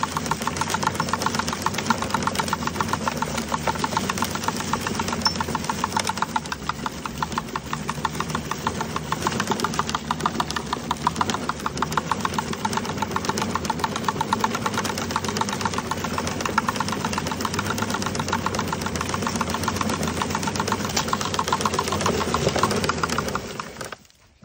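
Gardena push leaf collector rolling over a lawn, its wheel-driven brush roller giving a rapid, even clatter as it sweeps leaves into the bag. The clatter cuts off near the end as the collector stops.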